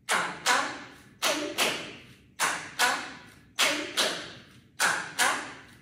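Bare feet stamping a Kathak tatkar on a wooden floor, with no ankle bells. The stamps come in pairs, two quick strikes about half a second apart, with a pair about every second and a quarter, five pairs in all. Each stamp trails off briefly in the room.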